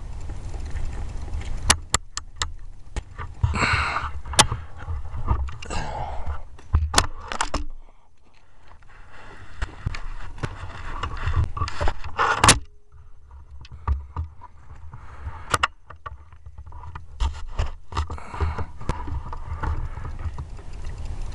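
Handling noise from an air rifle with a camera on its scope: scraping and rubbing with many scattered sharp clicks, over a constant low rumble.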